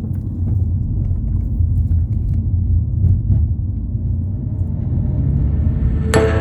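Steady low rumble, with music starting just before the end.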